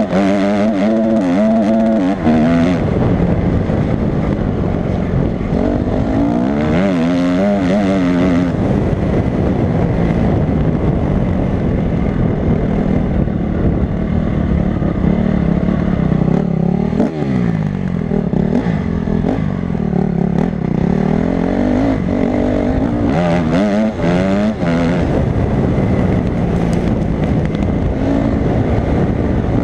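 Honda CRF250 dirt bike engine being ridden hard, revving up and down over and over, its pitch rising and falling with throttle and gear changes.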